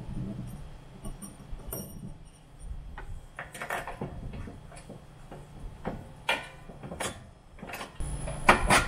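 Scattered light metallic clicks and knocks as the front fork assembly of a mini bike is worked on by hand, its washers and spacer being refitted.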